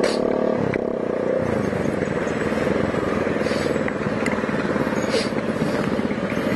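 Bajaj Pulsar 200NS single-cylinder engine running steadily as the bike rolls slowly through traffic. It sounds loud and raw because the silencer of its racing exhaust has come off.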